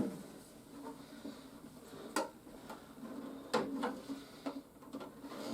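Hard plastic toy playset parts being handled and set down: scattered knocks and clicks, the clearest about two seconds in and a cluster from three and a half seconds on.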